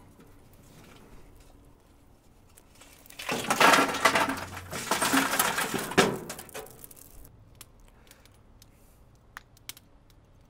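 Lit lump charcoal poured from a metal chimney starter into a thin-steel offset smoker firebox: about three seconds of coals clattering and clinking onto metal, ending in a sharp knock. Then a few faint, scattered ticks as the coals settle.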